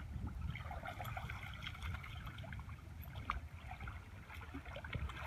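Shallow pond water lapping and sloshing around a person's waders over a steady low rumble, with faint scattered ticks and chirps.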